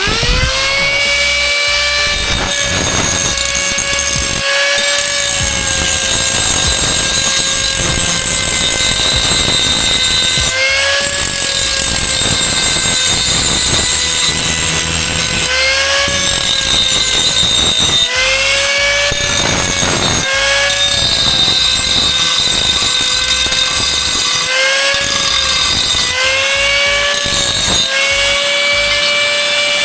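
Angle grinder running on metal rails, spinning up at the start, then a steady high whine that sags in pitch several times as it bites into the metal under load and picks back up.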